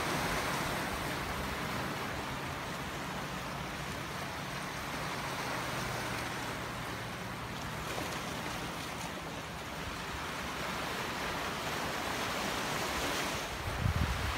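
Waves and surf washing steadily on a rough sea, with wind gusting on the microphone near the end.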